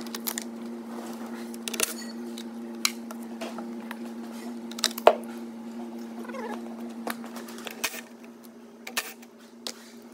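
Scattered clicks and knocks of hands handling the high-voltage cables, connectors and small hardware of an electric-car battery pack, the loudest knock about five seconds in, over a steady low hum.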